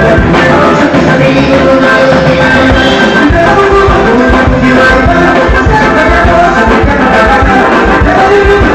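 Loud band music with a steady beat, with sung or held melodic notes over it.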